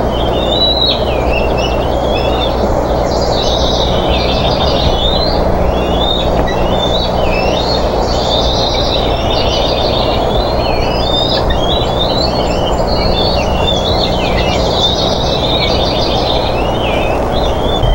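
Birds chirping and trilling continuously over a loud, steady low hum and hiss from the nest camera's microphone.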